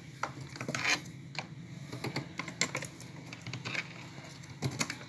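Irregular light clicks and taps of hands handling speaker wires and terminals while wiring a speaker in its cabinet, with a few louder knocks about a second in and near the end.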